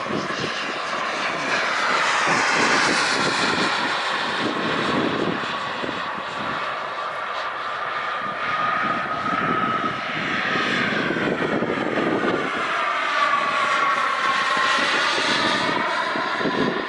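Turbine engine of a Skymaster T-38 Talon RC model jet whining in flight. Its pitch sweeps down and back up as it passes, once near the start and again more slowly in the second half.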